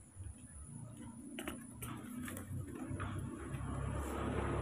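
Scattered faint clicks and taps over a low rumble, then a motor vehicle approaching, getting steadily louder toward the end.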